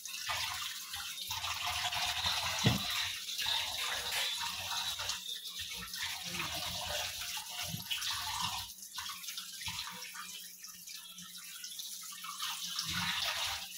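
Tap water running and splashing while raw fish pieces are washed under it, with one sharp knock about three seconds in.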